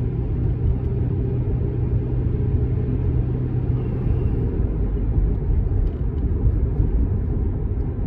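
Car cabin noise while driving: a steady low rumble of engine and tyres on the road, with a low hum that drops away about halfway through.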